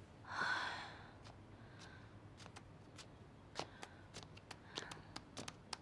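A young woman sighs once, a breathy exhale. It is followed by a run of light, irregular clicks or taps, about two or three a second.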